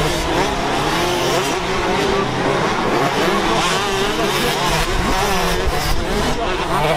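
Several motocross bikes riding the track, their engines revving up and falling away in overlapping waves.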